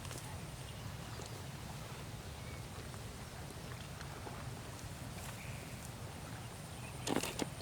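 Water buffalo walking, with light hoof steps over a steady low rumble and two louder knocks about seven seconds in.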